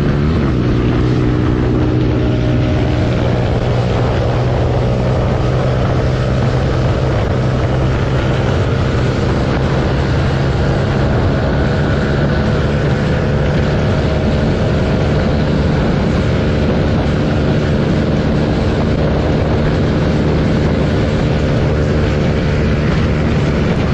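Motorcycle engine running hard at a nearly steady high speed, heard from on board the bike with wind and road noise over it.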